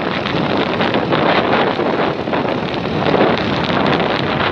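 Wind rushing and buffeting over the microphone from a moving vehicle: a loud, steady, fluttering rush with no clear engine note.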